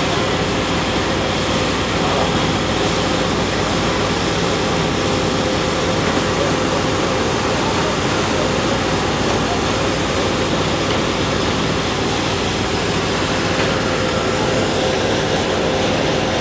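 Boat motor running with a steady hum while river water rushes and splashes past the hull.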